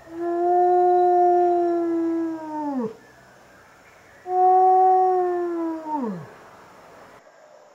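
Wolf howling twice: two long, level-pitched howls, each ending in a steep downward slide, the second starting about four seconds in.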